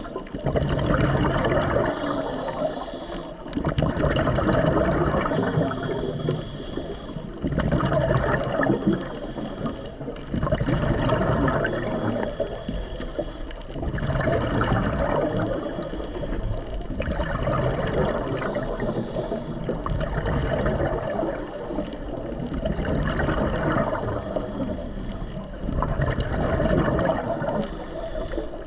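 Underwater recording of a diver's breathing: exhaled bubbles gurgle and rush in a cycle that repeats every four to six seconds, alternating with a fainter hiss.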